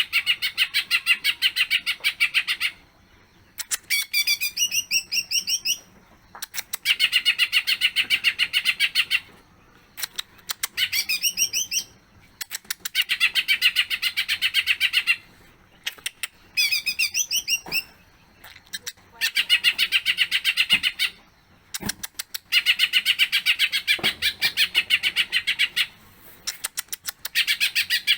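A cucak ijo (green leafbird) in full song, running through its repertoire of imitated phrases. Bursts of very rapid repeated trilling notes, each two to three seconds long, alternate with shorter phrases of rising whistled notes, with brief pauses between them.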